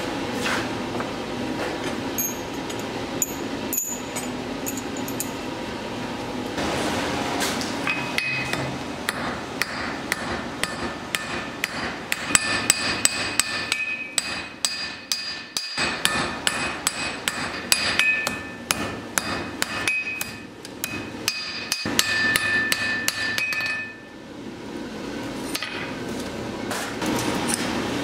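Hand hammer striking red-hot steel on an anvil in runs of quick blows, each strike leaving a metallic ring. The blows come thickest in the middle of the stretch and pause briefly near the end.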